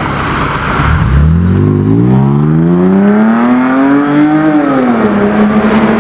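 BMW Z4 with an aftermarket TRR full exhaust system accelerating hard. The exhaust note climbs steadily in pitch for about three and a half seconds, then drops a little and holds steady.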